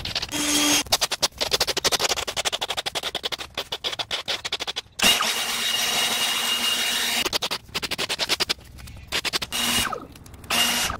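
Lawn-care power tools in quick succession: a fast rattling clatter, then a cordless leaf blower running with a steady whine for about two seconds in the middle. Short bursts of the blower come again near the end.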